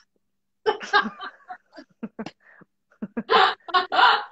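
Women laughing heartily in a string of short bursts, growing louder near the end.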